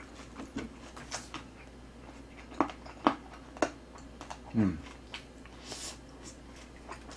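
A person chewing a mouthful of grilled pork belly, with wet mouth clicks and smacks, three sharp ones in quick succession around the middle. A short falling hum of enjoyment follows.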